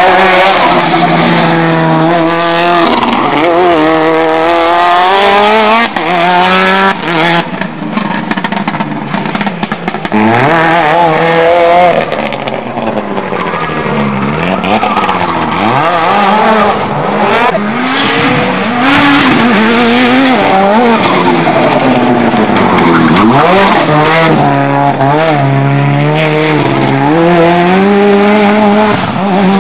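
Mitsubishi Lancer Evo 6's turbocharged four-cylinder engine driven hard on a hill-climb run, its revs repeatedly rising and falling as it accelerates, changes gear and lifts off.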